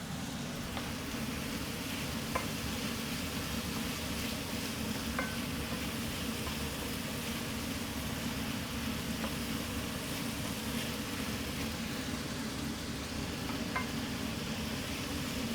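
Peppers, onion and tomato sizzling steadily in a frying pan with a sauce, with a few light clicks, a utensil against the pan, here and there.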